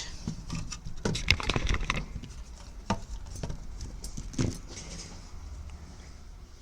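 Light clicks, taps and clatter of small parts and tools being handled on a workbench, with a flurry about a second in and single knocks near three and four and a half seconds, over a low steady hum.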